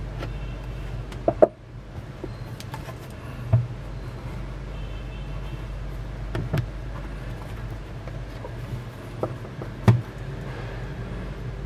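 Handling noise from unboxing an iPhone 6: the cardboard box and the phone are knocked and tapped a handful of times, sharpest about a second and a half in and near ten seconds, over a steady low hum.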